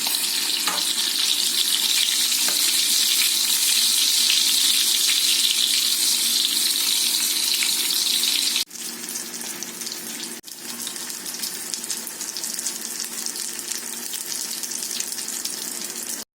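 Food frying in hot oil in a pan: a steady crackling sizzle. It drops to a quieter sizzle after a sudden break about nine seconds in.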